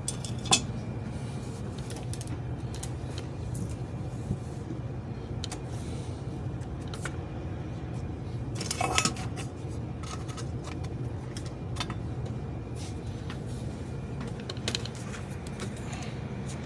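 Steady low electrical hum from a Lionel toy-train transformer with the test track powered. Light clicks and clinks of the metal passenger car being handled come now and then, the loudest about nine seconds in.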